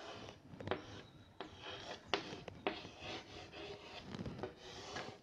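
Chalk writing on a blackboard: faint scratching strokes, broken by a few sharp taps as the chalk meets the board.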